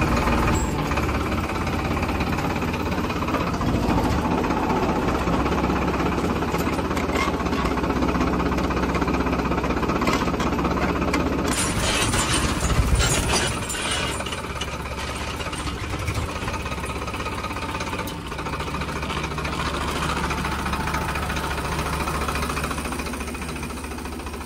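Farmtrac 60 PowerMaxx tractor's diesel engine running steadily as the tractor drives over a ridged field, with a slight drop in level about halfway through.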